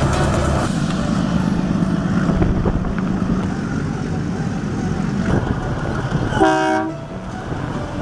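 Narrow-gauge diesel train running with a steady rumble, and one short horn blast about six and a half seconds in.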